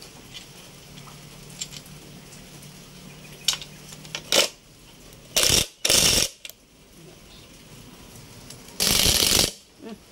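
Cordless drill spinning a socket extension to back bolts out of a transmission case: two short bursts close together about five and a half seconds in and a longer one near the end. Light metal clinks come before them.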